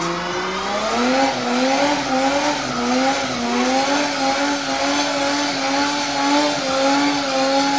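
Toyota 2JZ straight-six engine held at high revs in a burnout, its pitch climbing about a second in and then holding high with a slight waver, over the noise of spinning, smoking rear tyres.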